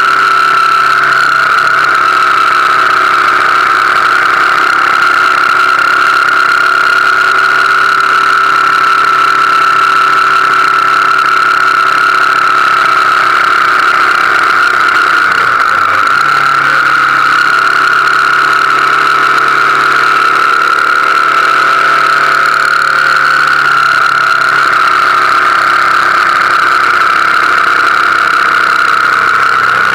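BMW R1200GS Adventure's boxer-twin engine running steadily at cruising speed, with a steady high whine over it. About halfway through, the engine note dips briefly and then returns.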